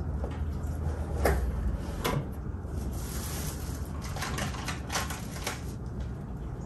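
Cardboard box of cookie dough being opened and handled on a counter: a few sharp knocks and clicks, with a brief rustle of packaging about three seconds in.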